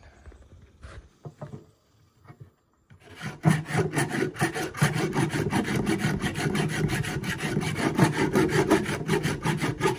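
A hand rasp (Surform-type file) shaving along a debarked wooden branch to smooth it: fast, even rasping strokes, about six a second, start about three seconds in after a few faint clicks.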